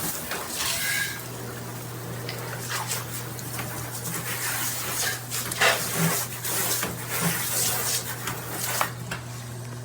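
Water spraying from a shower head, a steady hiss with a steady low hum under it and a few scattered clicks and knocks.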